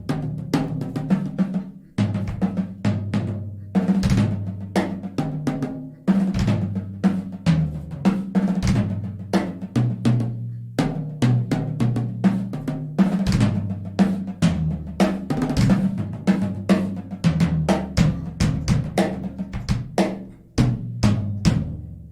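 Music: a drum kit played fast with snare, bass drum and rolls, over a bass line whose notes change every second or two.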